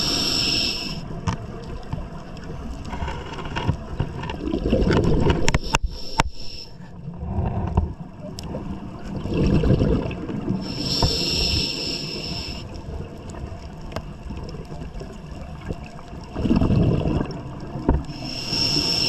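Scuba diver breathing through a regulator underwater: a high hiss with each inhale, three times, alternating with low bubbling rumbles as each exhale vents bubbles, in a slow cycle of about seven seconds.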